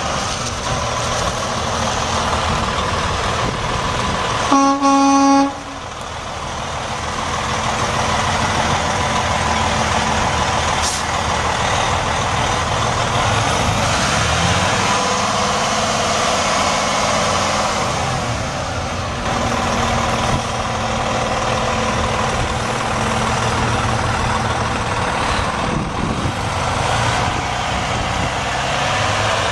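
2005 Freightliner Columbia semi truck's Detroit Diesel Series 60 12.7-litre inline-six turbo diesel running steadily. A horn sounds once for about a second, and about halfway through the engine speeds up and holds at the higher pitch.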